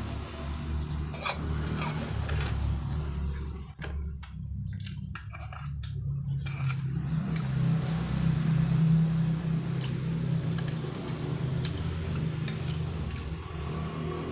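Cutlery clinking a few times against a plate during a meal, over a steady low hum.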